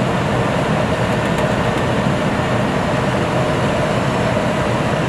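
Steady rushing hum inside an Airbus A320 cockpit on the ground, its engines still running with a faint constant tone over the noise.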